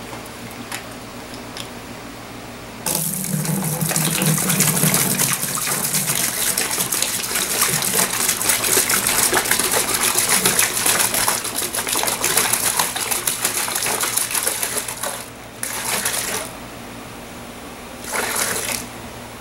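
Liquid precast modifier poured from a plastic jug into a bucket. A steady gushing pour starts about three seconds in and runs for some twelve seconds, then comes in two short spurts near the end.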